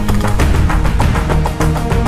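Background music with a steady percussive beat over sustained low notes.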